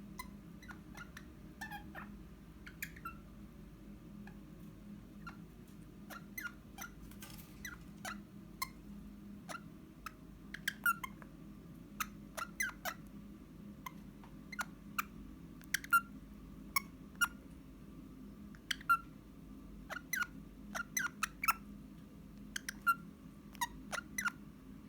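Eastern rosella giving many short, sharp calls, each a quick falling chirp. They come sparsely at first, then faster and louder from about a third of the way in, over a steady low household hum.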